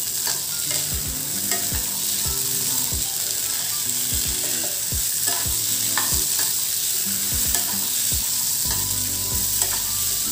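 Boiled black chickpeas sizzling in oil in a kadhai while a spatula stirs them, with repeated short scrapes and knocks of the spatula against the pan. The chickpeas are being sautéed over a medium gas flame.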